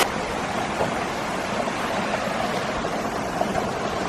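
Steady, even rush of distant falling water from a waterfall and cascades, with no distinct events.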